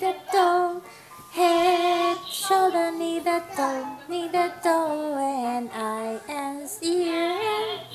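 A little girl singing a melody, holding notes and stepping down in pitch through each phrase.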